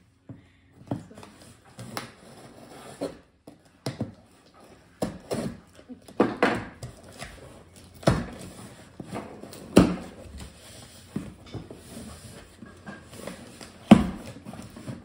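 Cardboard shipping box being cut open with a knife and its lid pried up: a run of scrapes, rustles and sharp cardboard knocks, the loudest knock near the end.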